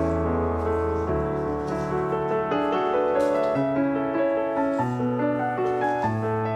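Soft background piano music, gentle notes changing chord every second or so over a low bass.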